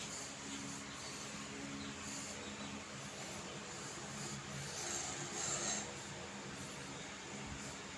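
Hands rubbing and stroking skin during a massage, a repeated soft swishing of palms over the back.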